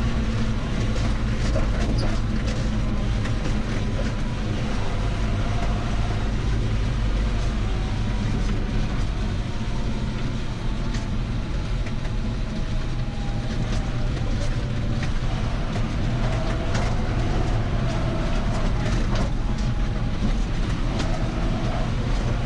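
John Deere farm tractor driving, heard from inside its cab: a steady engine drone with frequent short rattles and knocks.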